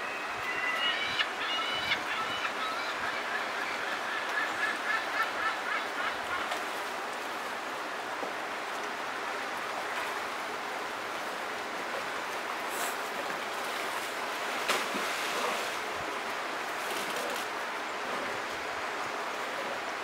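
Steady rush of a shallow salmon stream, with a bird giving a series of short, repeated honking calls in the first six seconds. A few sharp splashes break the water sound later on.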